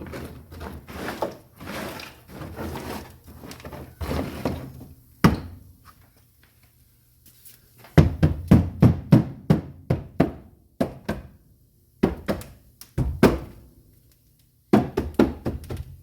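Dry ice and isopropyl alcohol slush scraped and spread over a car's floor pan, then quick runs of hard knocks and thunks as the frozen clumps are struck and broken up on the metal floor.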